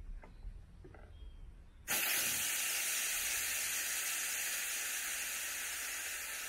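Pressurised air hissing out of an Exprotrek inflatable stand-up paddle board's valve as it is opened to deflate the board. The hiss starts suddenly about two seconds in, then runs on steadily, slowly fading as the board loses pressure.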